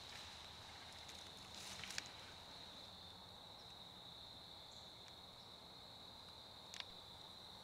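Near silence: a faint, steady, high-pitched insect chorus, with a short sharp click about two seconds in and another near the end.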